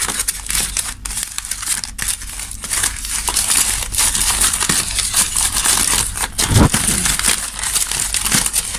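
Aluminium foil being unwrapped and crumpled by hand, a continuous crinkling crackle with many small sharp clicks, and one low knock about two-thirds of the way through.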